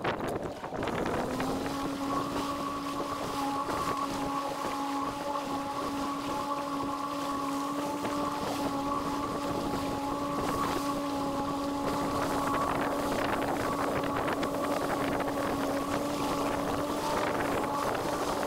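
Outboard motor of a small fishing boat running at trolling speed; its steady hum comes up about a second in and then holds even. Wind noise buffets the microphone over it.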